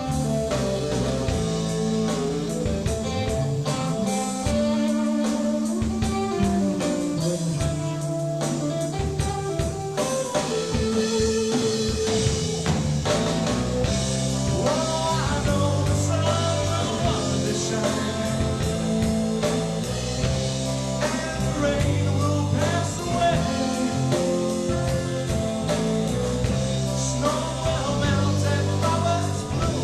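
A rock band playing live: guitar, bass and drums, with a singer coming in about ten seconds in.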